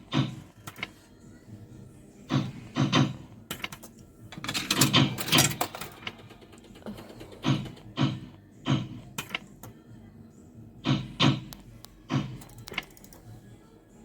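Fruit machine being played: an irregular run of short mechanical clunks and clicks, with a busier cluster about five seconds in.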